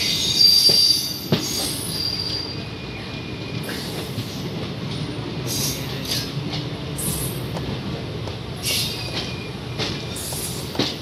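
Train wheels running on rail: a steady rumble with high screeching wheel squeals that come and go every second or two, loudest in the first second.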